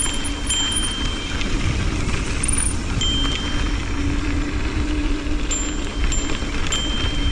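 Mountain bike rolling fast down a dusty dirt fire road: wind rushing over the camera microphone and knobby tyres rumbling on the packed dirt, with a thin high tone that comes and goes.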